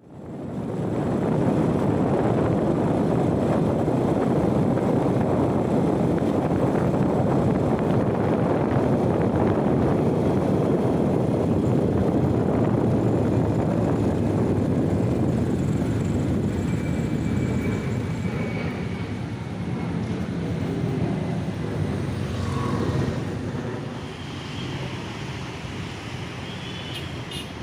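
Loud steady rumble of a passing vehicle, easing off after about sixteen seconds and fading further near the end, with a few faint short high tones over it.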